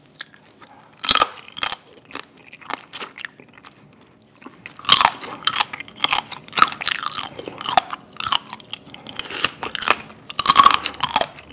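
Close-miked mouth sounds of eating soy-sauce marinated raw crab: a couple of sharp clicks about a second in, then dense, wet chewing and crunching from about five seconds in until near the end.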